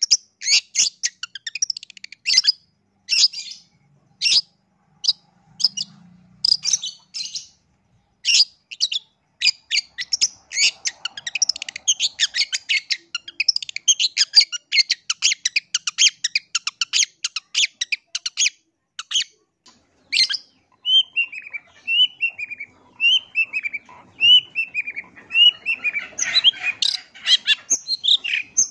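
Long-tailed shrike singing loudly in quick runs of sharp, chattering notes, packed into a dense rapid chatter in the middle. About twenty seconds in it switches to a string of down-slurred whistled notes, roughly one a second, before a jumbled burst of mixed notes near the end.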